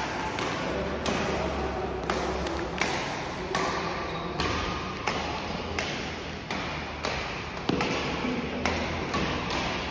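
Badminton rackets striking shuttlecocks in rallies: sharp taps at irregular intervals, about one a second, over a steady background hum.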